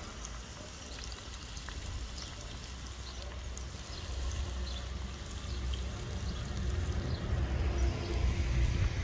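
Sausages and potatoes sizzling in fat on a tanjurača disc-plough pan over a wood fire: a steady frying hiss scattered with small pops, over a low wind rumble on the microphone. The sizzle grows a little louder in the second half.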